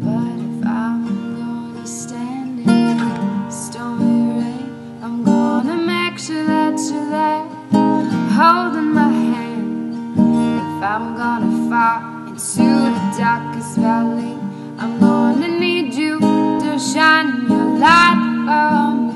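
Acoustic guitar music, strummed chords with picked melody notes over them.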